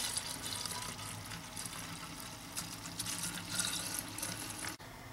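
Coolant pouring in a steady stream from a plastic jug into the filler neck of a BMW M62 V8's coolant expansion tank, refilling a cooling system that had been drained nearly dry. The pouring sound cuts off abruptly near the end.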